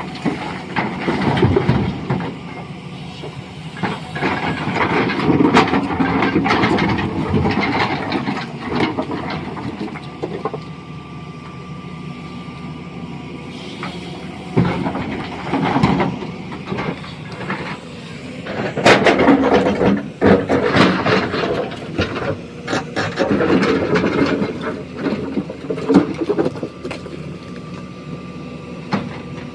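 Stone-crushing machinery and heavy equipment running with a steady hum, while rocks crash, crunch and clatter in loud irregular spells.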